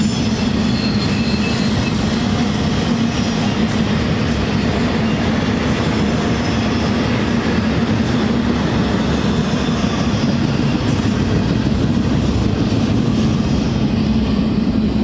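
Double-stack intermodal freight cars rolling past on the rails: a steady rumble of steel wheels on track, with a faint wheel squeal right at the start.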